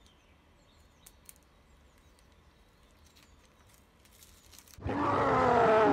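Faint handling of masking film being peeled off a painted canvas, with a couple of small clicks. About five seconds in, a loud, drawn-out roar starts, its pitch falling.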